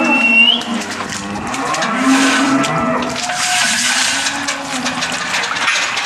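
Holstein dairy cows mooing, several low calls following and overlapping one another over a steady hiss, with a brief high squeal right at the start.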